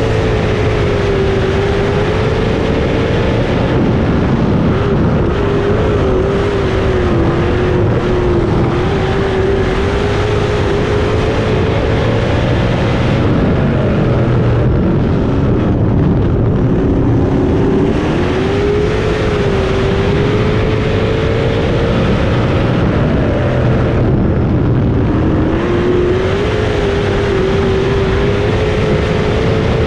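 305 sprint car's small-block V8 heard onboard at racing speed on a dirt oval. The engine note rises down the straights and falls away as the driver lifts for the turns, about halfway through and again near the end, before climbing back on throttle.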